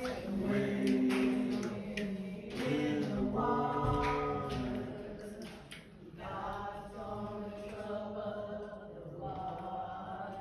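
A group of voices singing a slow hymn together, holding long notes, with a brief lull about six seconds in.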